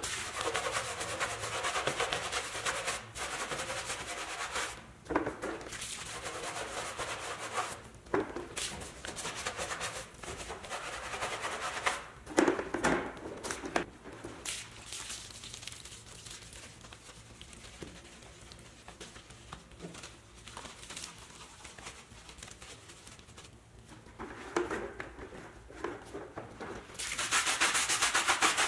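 Stiff tire brushes scrubbing a soapy truck tire: a wet, bristly rubbing in repeated strokes with a few knocks. It eases off for a while in the middle, then comes back harder near the end.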